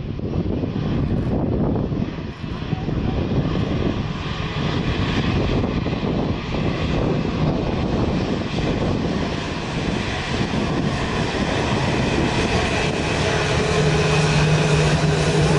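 Scoot Boeing 787's Rolls-Royce Trent 1000 turbofans running at taxi power as the jet taxis past: a steady jet roar with a high whine, slowly growing louder as it draws nearer, with a low hum joining near the end.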